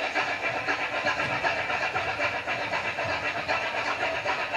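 Indonesian gamelan music: a rapid, dense, even run of struck bronze metallophones and gongs playing interlocking patterns.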